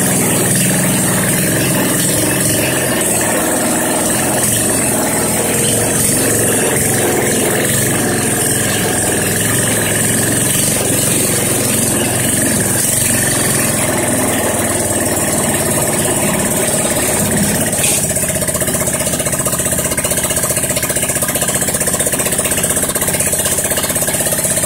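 Yerf-Dog go-kart's small engine running steadily as the kart is driven slowly out of a garage onto a driveway.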